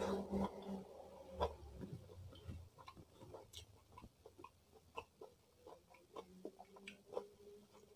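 Close-miked chewing: an irregular run of short mouth clicks and small crunches, loudest in the first two seconds.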